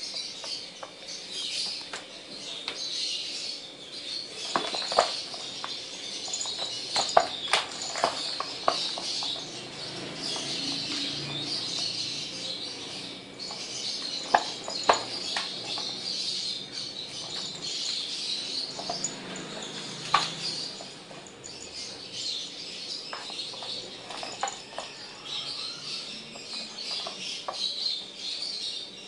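Scattered sharp clicks and knocks of a small light-up ball toy striking a plastic basket as a kitten bats it, over continuous high chirping.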